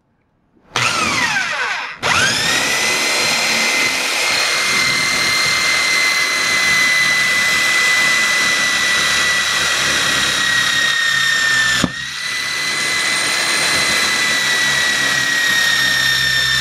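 Electric drill boring a hole down through a particleboard desktop toward a steel support bar, its motor whining steadily. It starts about a second in, slows and picks up again, then briefly cuts out and restarts about twelve seconds in.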